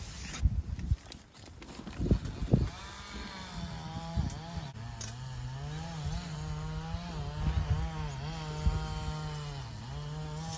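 A small engine running steadily at high speed, its pitch wavering and dipping briefly now and then, after a few low knocks in the first couple of seconds.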